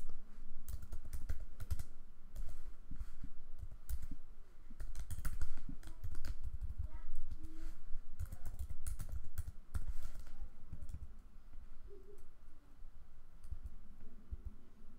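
Typing on a computer keyboard: irregular keystrokes in quick clusters with short pauses, thinning out near the end.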